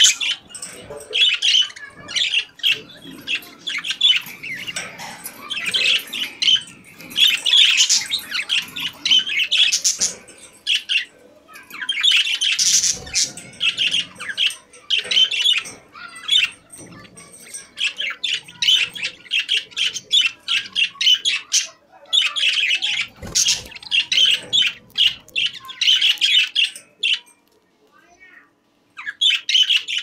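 Budgerigar warbling: a rapid, chattering stream of chirps, clicks and squawks in phrases broken by short pauses.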